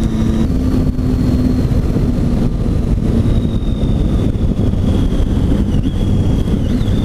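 Triumph Tiger 800 XC's three-cylinder engine running steadily under way, with a dense rumble of wind and road noise around it.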